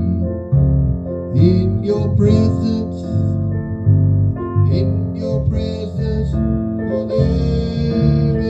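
Piano playing slow, sustained chords.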